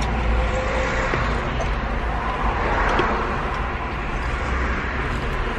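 Steady low rumble and hiss of car noise heard inside the car's cabin.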